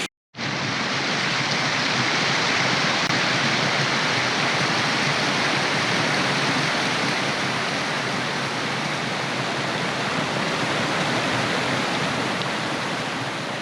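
Rain-swollen creek water rushing in a steady, even wash of noise. The sound drops out completely for a split second right at the start, then resumes unchanged.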